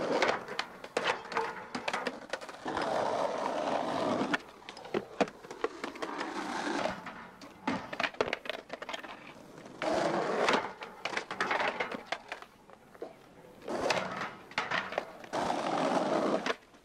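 Skateboard wheels rolling over rough asphalt in several separate stretches, with sharp clacks of the board hitting the ground and curbs in between.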